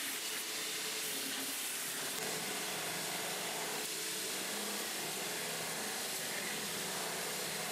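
Belt grinder grinding away the steel canister that has stuck to a forge-welded billet: a steady, even hiss of abrasive belt on steel.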